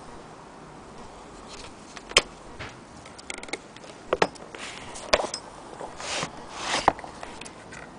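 Handling noise: scattered sharp clicks and knocks with short rubbing swishes between them, the loudest click a little over two seconds in.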